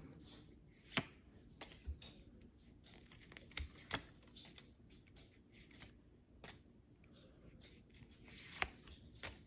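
Pokémon trading cards being handled and flipped through: faint rustling with a few sharp card clicks, the loudest about a second in and near the end.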